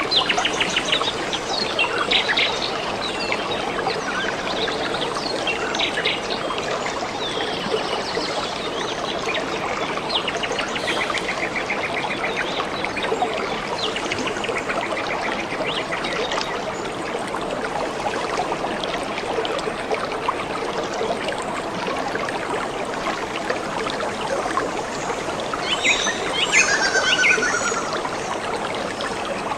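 A small stream trickling steadily, with birds singing and chirping over it off and on. A louder run of birdsong with quick trills comes near the end.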